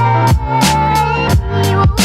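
Background music: an electronic track with a heavy bass, a held melody line and a steady drum beat.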